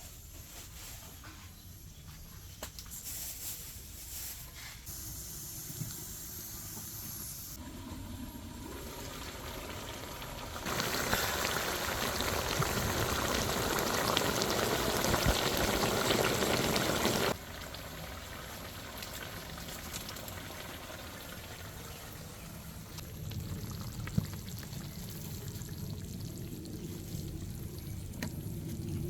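Liquid pouring and trickling, with a louder stretch of about six seconds in the middle that starts and stops abruptly.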